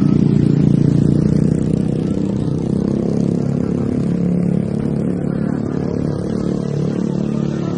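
Road traffic of motorbike and car engines running, a steady dense din with some clatter.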